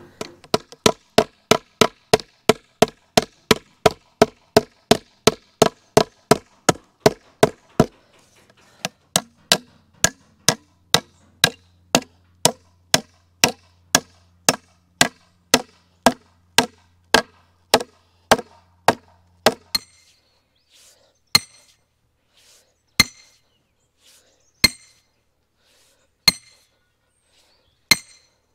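Steel hammer striking a wooden fence post and its timber brace in quick, even blows, about three a second, slowing a little after about eight seconds. From about twenty seconds in come slower single strikes with a metallic ring, roughly one every second and a half, from a long metal bar worked at the foot of the brace.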